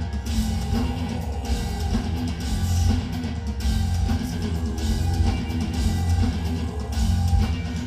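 Live heavy metal band playing: heavily distorted low-tuned guitars and bass over pounding double-kick drums and cymbals, the full band loud and dense.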